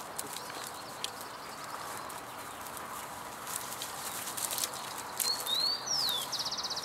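A wild bird calling about five seconds in: a couple of quick whistled glides, then a fast, dry trill. Under it runs a steady background hiss with scattered light clicks.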